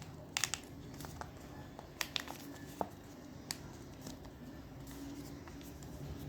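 Folded paper rustling and crinkling under the fingers as origami layers are pressed into shape, with a few short sharp crackles in the first half.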